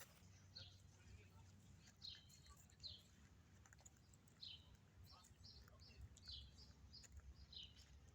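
Faint chirping of small birds: many short high calls, one every half second to a second, over a low steady background rumble.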